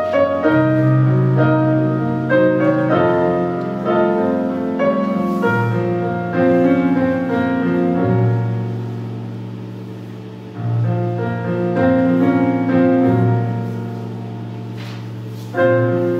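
Slow piano music: chords over low bass notes, each struck and left to ring and fade, a new one every few seconds.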